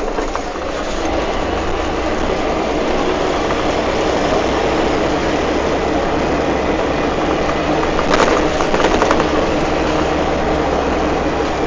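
Scania K310 city bus with a Viale body driving along a city street, heard from inside the passenger cabin: a steady engine drone with road noise, and a short burst of rattling about eight seconds in.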